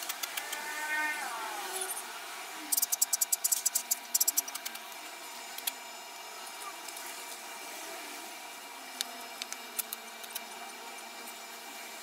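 Adhesive tape being pulled off a roll in crackling, rapid clicking runs, densest a few seconds in, with a few more scattered clicks later. A short pitched call sounds at the start.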